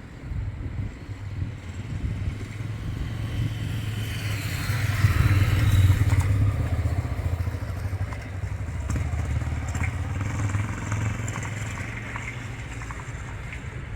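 A motor vehicle, likely a motorcycle, passing by: its engine rumble grows to a peak about five to six seconds in and then fades.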